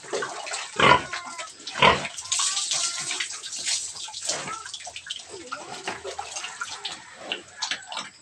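Water poured from a dipper over a sow, splashing on her back and onto the concrete floor of the pen, with two heavy splashes about one and two seconds in. The sow grunts now and then.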